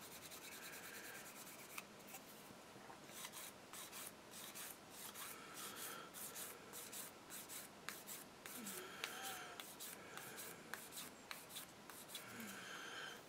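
A sanding pad rubbed back and forth along a thin plastic model gun barrel, smoothing it after its mould line has been removed. It starts as a faint, steady rubbing, then from about three seconds in becomes short, quick strokes, a few each second.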